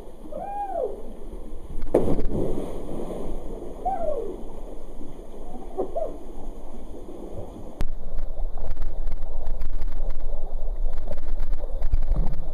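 A person jumping into a canyon pool: a loud splash about two seconds in, then water sloshing and splashing as he swims. A few short rising-and-falling calls sound in the background early on, and the water noise grows louder about eight seconds in.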